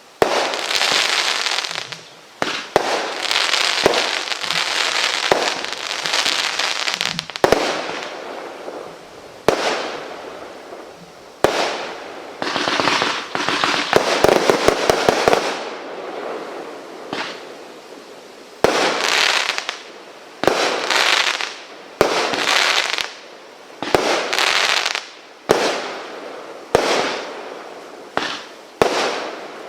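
Multi-shot firework firing in a long sequence: sharp bangs, each followed by a crackling, fizzing tail that dies away. There is a quick rattle of cracks about halfway through, then single shots about every second and a half toward the end.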